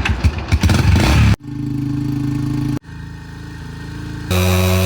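Yamaha TTR-125's small air-cooled four-stroke single-cylinder engine warming up. For the first second and a half it runs roughly and unevenly, with blips of revs, then it settles into a steady idle. The idle changes level abruptly twice, stepping down and then back up loud near the end.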